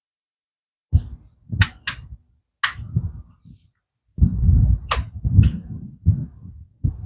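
An air rifle being handled and readied to fire: a few sharp metallic clicks and clacks from its action, mixed with low rumbling handling noise.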